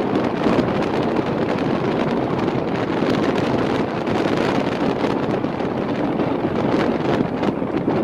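Strong wind buffeting the microphone: a loud, steady rush of wind noise.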